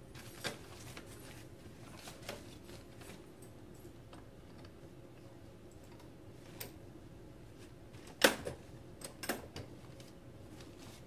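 Scattered clicks and knocks of the plastic and metal parts of a Graco Slim Spaces baby swing being handled and fitted together, with one louder sharp knock about eight seconds in and a smaller one a second later.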